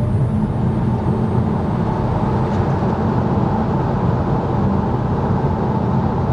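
Tyre and wind noise inside the cabin of a dual-motor Tesla Model 3 Performance on wet asphalt during a full-power launch, as the car accelerates to about 100 km/h and then lifts off into regenerative braking. A steady, even rush with no engine note.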